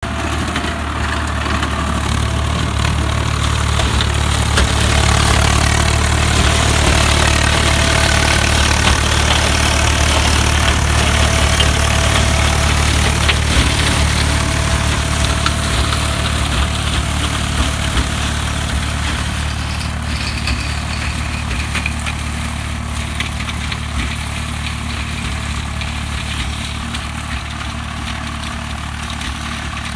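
Swaraj 855 tractor's diesel engine running steadily under load, driving a Maschio mulcher that shreds standing cotton stalks, with a dense rush of chopping and scattered sharp cracks from the stalks.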